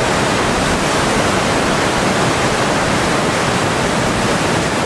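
Flash flood of muddy water rushing and churning through a desert wash, a loud, steady rush of water with no breaks.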